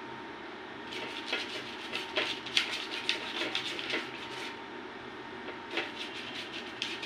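Fingers rubbing oil over the paper lining of a cake tin: a run of soft rustles and scrapes, thick from about a second in to past the middle, with a couple more near the end.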